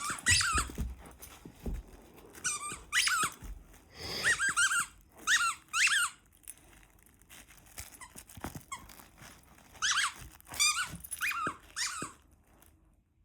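Squeaky dog toy squeaking in short bursts, about a dozen times with pauses, as a Doberman puppy chews it. There are a few soft thuds in the first couple of seconds.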